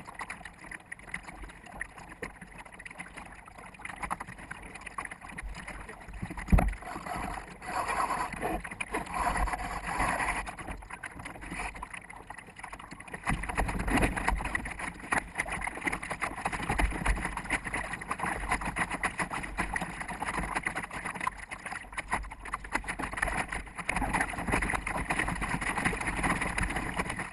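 Water rushing and slapping against a sailboat's bow, with wind on the microphone, sped up fourfold so it comes out as a fluctuating hiss and rumble. A single sharp knock about six and a half seconds in.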